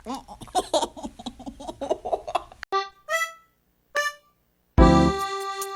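Piano music: a busy first couple of seconds, then a few single ringing notes, then loud sustained chords near the end.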